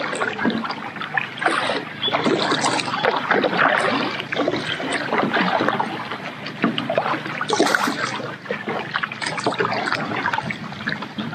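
Kayak paddle strokes: the blades dipping into the water, with repeated small splashes and dripping.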